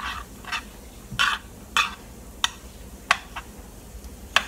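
A spoon stirring butter in a pan on the stove, scraping and tapping against the pan in a steady rhythm of short strokes, about one every half second or so.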